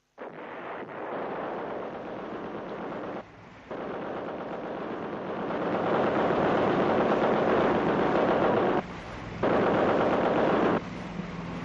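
Long bursts of rapid machine-gun fire, broken by a short pause a few seconds in and two more near the end.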